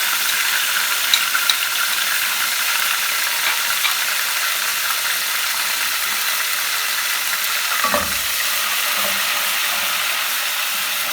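Chopped garlic and whole cumin seeds sizzling steadily in hot oil in a cooking pot, with a few light crackles early on and a dull knock about eight seconds in.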